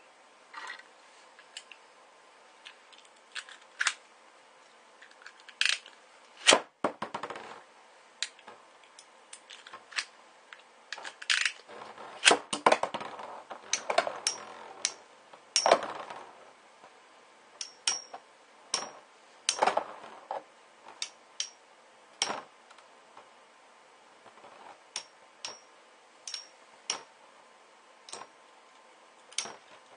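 Two Metal Fight Beyblade spinning tops, Rock Giraffe and Gravity Perseus, battling in a plastic stadium: irregular sharp clacks as the metal tops strike each other and the bowl. The clashes come thickest in the middle stretch and thin to single clicks near the end.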